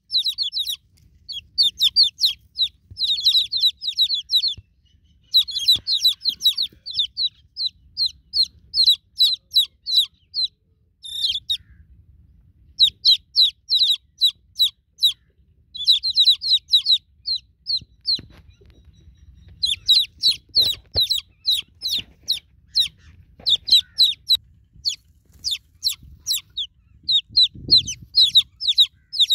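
Newly hatched chicken chicks peeping: rapid runs of short, high-pitched chirps, many a second, broken by brief pauses between bouts.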